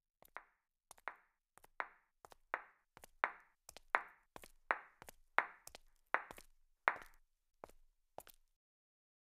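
A steady series of light taps, about one every three-quarters of a second, growing louder toward the middle and then fading away.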